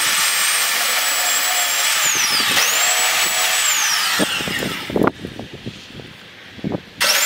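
Porter-Cable handheld belt sander running on the end of a wood stud, a loud steady hiss with a high motor whine that dips once under pressure and recovers. About halfway through it is switched off and the whine falls away as the belt spins down. A few knocks follow, and a short loud burst comes near the end.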